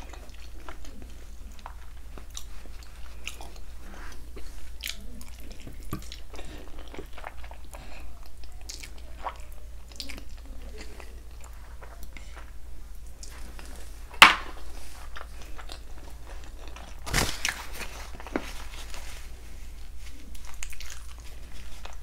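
Close-miked chewing of palm butter and rice eaten by hand: soft wet mouth clicks and smacks throughout. One sharp click about two-thirds of the way in is the loudest sound, followed a few seconds later by a brief noisy burst.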